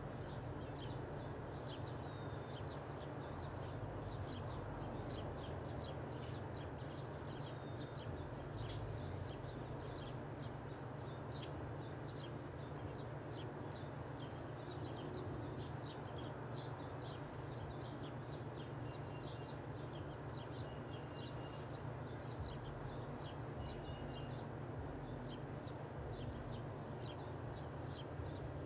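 Small birds chirping in the background, many short high chirps throughout, over a steady low hum.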